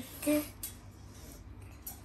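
A short voice sound just after the start, then a quiet room with a couple of faint light clicks.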